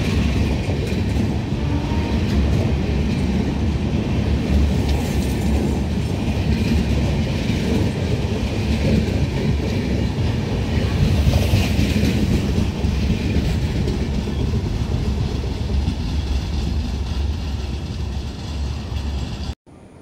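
Indian Railways express train's coaches rushing past at speed: a steady, dense rumble of steel wheels on the rails with clatter mixed in. It cuts off suddenly near the end.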